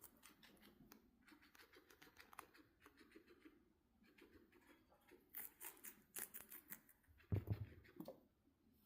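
Guinea pig chewing food: faint, irregular crisp crunching clicks, louder for a run of bites between about five and eight seconds in, with a soft low thump about seven seconds in.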